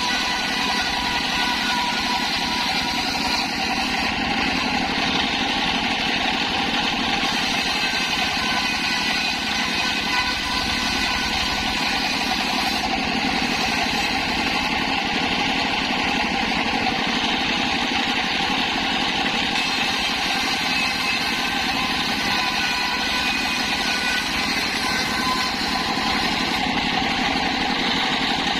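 Engine-driven circular saw rig running steadily at an even speed, with a constant engine hum and no change in pitch or loudness.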